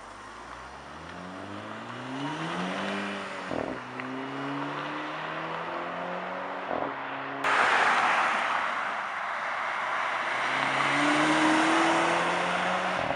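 2012 Volkswagen GTI's turbocharged 2.0-litre four-cylinder accelerating through its six-speed DSG gearbox, the engine note rising and then dropping at quick upshifts about four and seven seconds in. After a sudden change the car goes past close by with loud tyre and road noise, its engine climbing again to another upshift near the end.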